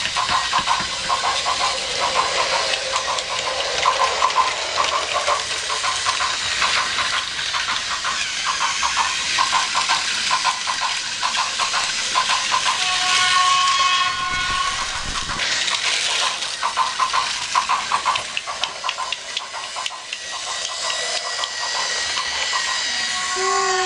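Battery-powered Plarail toy trains running on plastic track: a continuous whirring hiss of small motors and gears with rapid clicking and clattering of wheels over track joints.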